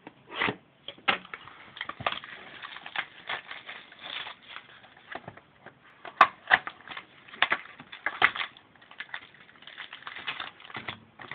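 Plastic shrink-wrap crinkling and tearing as a sealed trading-card box is unwrapped and its cardboard opened by hand. It comes as irregular crackles and sharp clicks, with a few louder snaps about six to eight seconds in.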